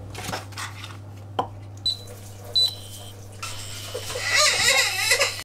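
Two short, high electronic beeps from a glass-top hob's touch controls over a low steady hum, with a few clicks of the frying pan. From about three and a half seconds in, butter starts to sizzle in the hot pan.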